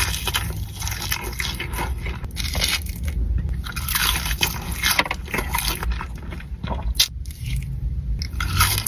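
Close-miked eating of Dave's Hot Chicken fried chicken: irregular crisp bites and crunches.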